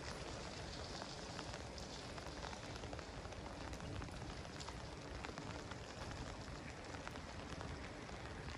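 Steady rain: an even hiss with many small scattered ticks of drops striking surfaces.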